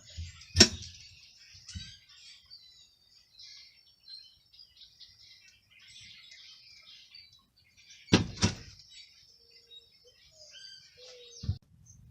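Small birds chirping steadily in the background, with a sharp knock about half a second in and two more knocks close together about eight seconds in.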